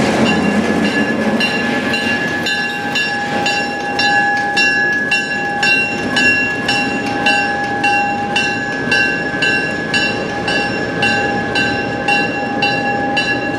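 A bell ringing steadily at about two strikes a second, over the low rumble of a diesel train rolling through a grade crossing.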